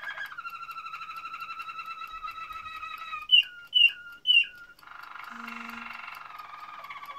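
Domestic canary singing in tours: a long, fast, even trill, then three loud sweeping notes about half a second apart, then a buzzier rolling trill.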